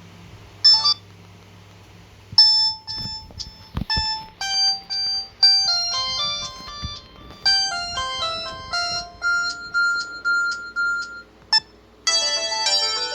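Samsung GT-E2120 mobile phone playing its ringtones. A short beep comes about a second in, then a melody of short, bright electronic notes. After a brief pause a second, busier ringtone starts near the end.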